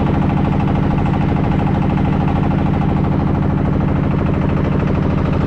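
Small wooden fishing boat's engine running steadily under way, a loud fast even pulse.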